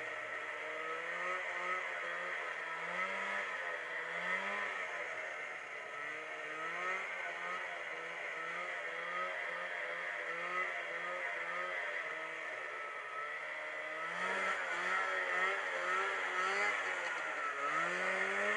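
Snowmobile engine running while riding across snow, its pitch rising and falling over and over, with a steady rushing noise underneath; it gets louder about three-quarters of the way through.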